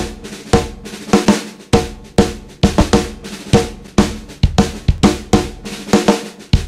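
Acoustic drum kit played in a busy pattern: snare hits, ringing toms and kick drum strikes, several a second.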